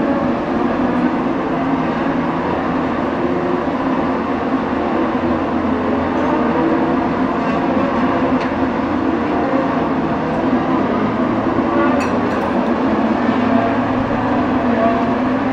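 Race cars' engines heard from a distance as a steady, loud drone, with no single car standing out.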